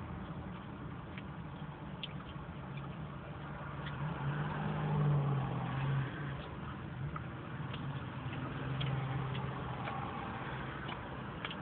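Low, steady hum of a car engine idling, growing louder for a couple of seconds around the middle, with faint clicks of chewing pizza over it.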